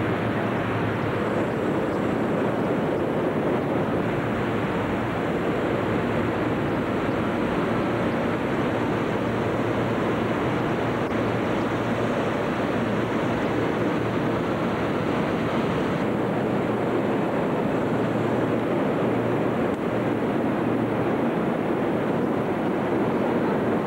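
Steady, unbroken roar of many hot air balloons being inflated at once in a huge hangar, with inflator fans and burners running together.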